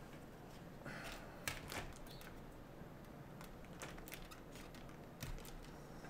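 Faint scattered clicks and a brief rustle as a mechanical keyboard's circuit board is handled and its internal cable connectors are worked loose by hand.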